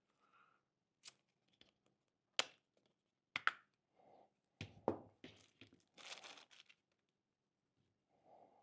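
Hand handling of a handheld radio scanner and its plastic accessories and packaging: a string of sharp plastic clicks and knocks, then about half a second of tearing, crinkling plastic about six seconds in.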